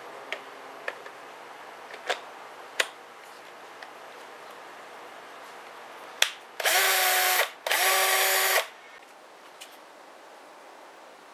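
Black & Decker 20V Max Matrix cordless drill (BDCDMT120) run twice at a steady pitch, about a second each with a short pause between. Before that, several sharp plastic clicks as the quick-connect drill-chuck attachment is fitted to the body.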